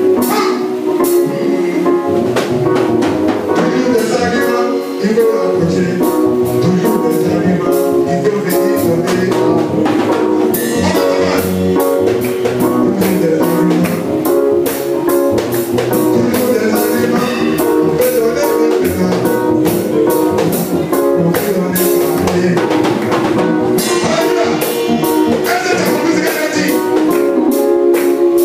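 Live worship music with drums and percussion under sustained chords, with some singing.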